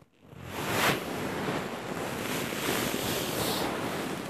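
Loud rustling and rubbing noise right at the microphone, starting abruptly a fraction of a second in and going on steadily, with no pitch to it.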